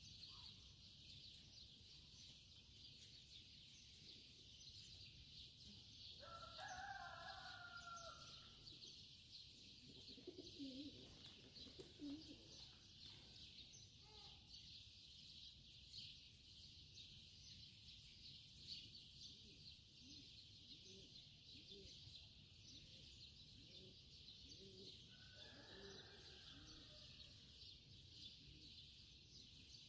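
Near silence with a steady high hiss, and a rooster crowing faintly twice: once about six seconds in and again near the end.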